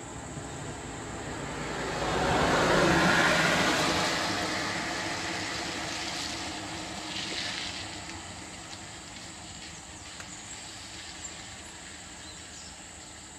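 A vehicle passing close by on a wet road, its tyre and engine noise swelling to a peak about three seconds in and then slowly fading away.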